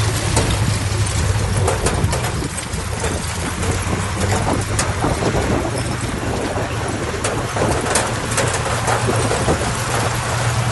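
Diesel engine of heavy earthmoving machinery running steadily with a low drone, with scattered clicks and rattles over it.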